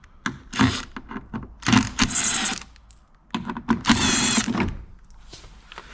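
A hand tool undoing the Torx screws that hold a car door lock actuator, in three main bursts of mechanical rattle with clicks between them.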